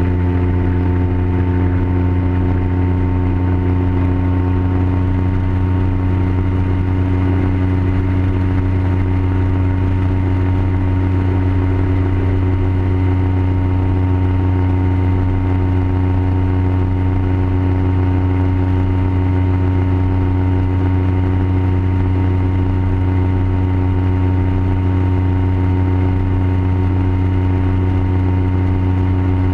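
Ultralight aircraft's engine and propeller running at a steady high power through the takeoff roll and climb-out: a constant, unchanging drone.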